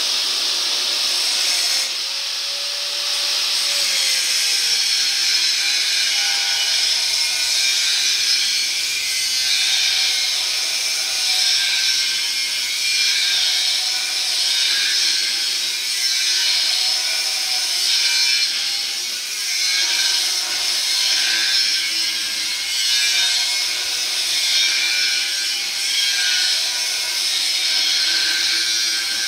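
Angle grinder with a thin cut-off wheel cutting through the steel rail of a Chevrolet S10 frame: a steady high grinding hiss over the motor's whine. The note sinks as the wheel bites in about two seconds in, and the sound then swells and eases every couple of seconds as the cut goes on.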